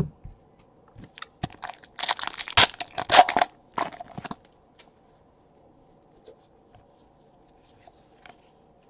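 Foil wrapper of a Donruss baseball card pack being torn open and crinkled: a cluster of sharp crackling rips about two to four seconds in. After that come a few faint ticks of cards being handled.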